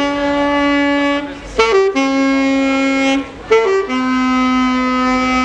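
Alto saxophone played solo: three long held notes, each a little lower than the last, with short quick runs of notes between them.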